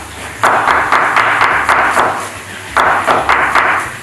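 Knife slicing an onion into julienne strips on a wooden cutting board: two runs of quick crunching strokes, about three to four a second, with a short pause between.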